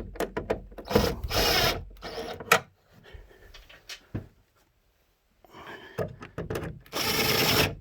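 Fasteners being run down on a plastic truck grille shell: sharp clicks and two short rasping bursts, one about a second in and one near the end, with the plastic popping as it seats.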